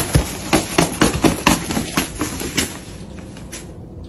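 The fabric lining of an open suitcase rustling and crinkling in quick sharp strokes, about four a second, as a hand grabs and pushes at it over a cat hidden underneath. The strokes die away near the end.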